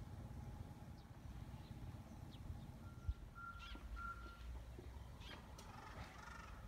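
Faint outdoor ambience: a low steady rumble with a few short bird chirps, a single thump about three seconds in, and two or three short high electronic beeps just after it.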